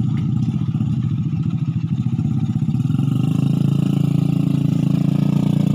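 An engine idling steadily with a fast, even chugging, growing slightly louder about halfway through.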